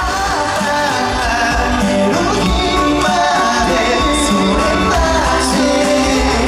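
Live pop song: male singers with handheld microphones singing over a loud band or backing track, recorded from the audience at a concert.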